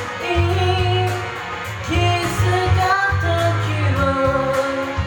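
Japanese pop-rock song: a voice singing long held notes over a full band backing with bass and chords.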